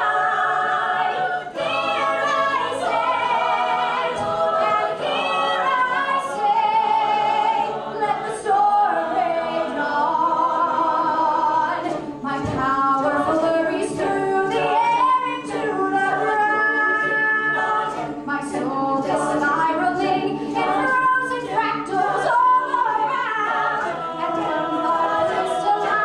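A cappella group singing with no instruments: a female soloist at a microphone carries the melody over many backing voices.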